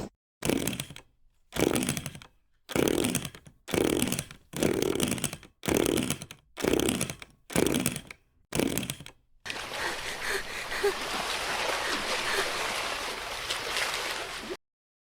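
Chainsaw run in short bursts, about one a second for nine seconds, each dropping in pitch as it dies away. It is followed by a steady hiss for about five seconds that cuts off suddenly.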